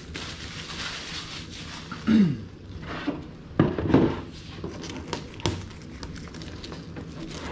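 Crinkling of crumpled clear plastic protective film, then a painted polycarbonate RC truck body being picked up, turned and set down on a wooden workbench with a few light knocks. There are two short low hums or grunts from a person, about two and four seconds in.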